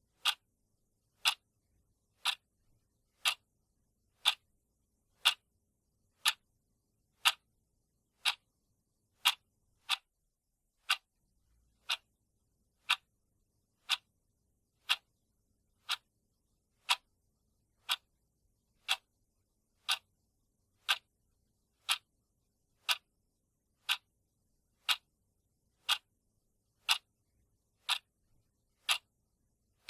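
Countdown timer's ticking sound effect: a sharp, short tick once every second, steady and even, with silence between ticks.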